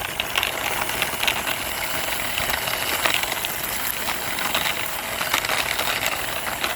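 Plastic toy backhoe pushed along by hand, its wheels rolling and rattling over the floor with a steady scraping hiss and many small clicks.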